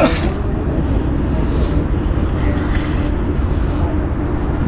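Steady low rumble of wind on the microphone together with a boat's engine running, with a faint steady hum.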